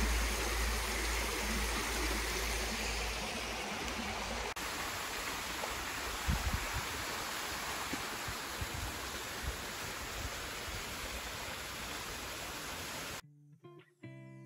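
Steady rushing noise, with a deep rumble under it at first, that cuts abruptly to a similar stretch of rushing noise about four and a half seconds in. The noise stops suddenly near the end and guitar music begins.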